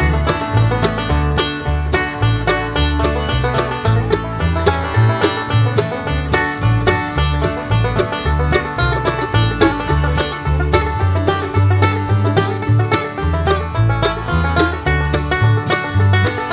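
Background music: an upbeat bluegrass-style tune with quick plucked banjo and guitar notes over a bouncing bass line.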